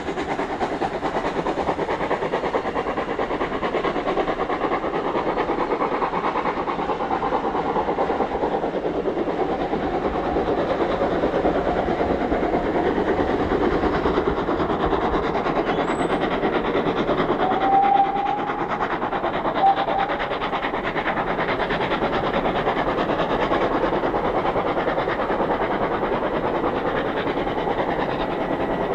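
GWR 57xx-class pannier tank steam locomotive No. 7714 working hard on a steep climb, its exhaust beating steadily. Two brief higher tones sound about two-thirds of the way through.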